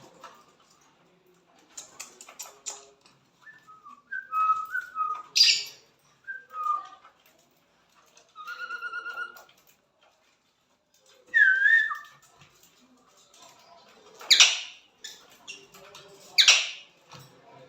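Small pet parrots, Fischer's lovebirds and budgerigars, calling with short whistles and chirps and a quick run of repeated notes. Two loud, shrill screeches come near the end.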